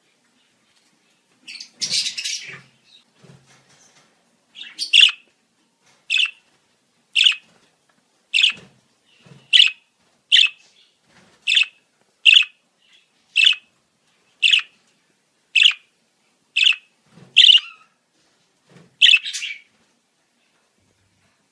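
Budgerigar calling: a short rough burst about two seconds in, then about a dozen sharp single chirps, roughly one a second.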